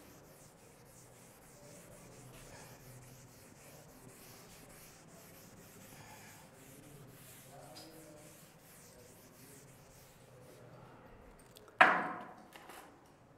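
Chalkboard duster rubbing across a chalkboard in repeated strokes as writing is wiped off. About twelve seconds in, one sudden loud knock that dies away over about a second.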